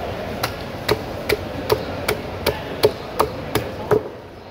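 Large knife chopping a whole fish crosswise into steaks, each stroke ending in a sharp knock on the cutting block. Ten evenly spaced chops, about two and a half a second, stopping shortly before the end.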